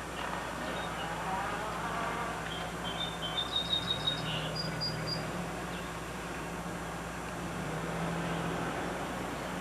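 A small bird sings a quick run of high chirps about three seconds in, then three higher notes, over a steady low hum and hiss of outdoor background noise.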